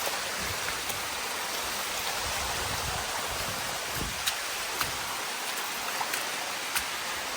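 Waterfall water running in a steady rush, with a few faint clicks over it.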